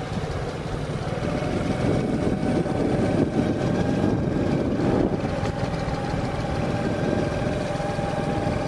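Motorcycle engine running steadily while riding, a steady tone over a low rumble, a little louder from about two to five seconds in.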